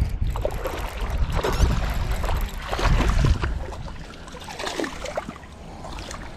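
A hooked smallmouth bass splashing and thrashing in the water as it is played in to the bank, over wind rumbling on the microphone. The splashing is heaviest in the first half and eases after about four seconds.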